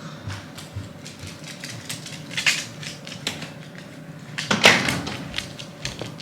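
Irregular light clicks and rustling handling noises, with a louder rustling knock about four and a half seconds in.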